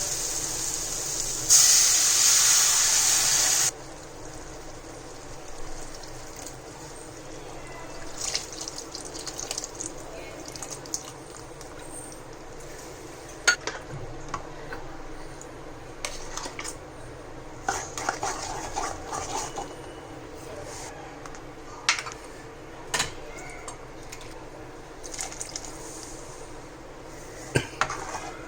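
Water running, as from a kitchen tap, getting louder about a second and a half in and stopping abruptly near four seconds. After that come scattered light clinks and knocks of kitchen utensils and vessels.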